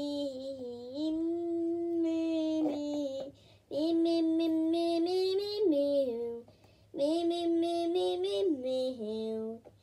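A young girl singing wordlessly on her own, in long held notes. There are three phrases, each stepping down in pitch at its end, with short breaks between them.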